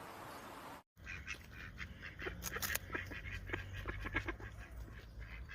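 A steady hiss that cuts off just under a second in. Then a flock of birds gives many short calls in quick succession.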